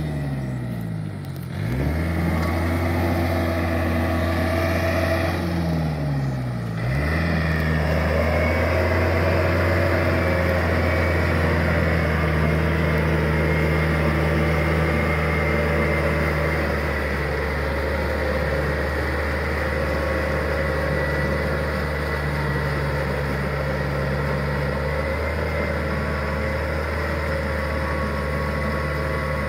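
Yanmar EF454T tractor's diesel engine running steadily while it pulls a rotary tiller. The engine pitch dips and recovers twice in the first seven seconds, then holds even.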